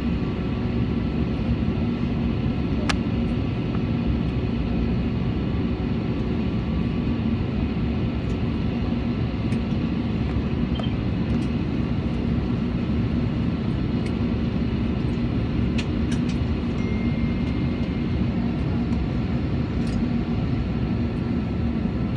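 Steady cabin noise inside an Airbus airliner on the ground after landing, engines still running: an even rush of engine and air-conditioning noise with a steady low hum and a few faint clicks.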